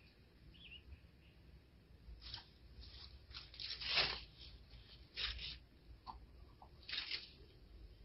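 Dry grass of a nest rustling in several short scratchy bursts, the loudest about four seconds in.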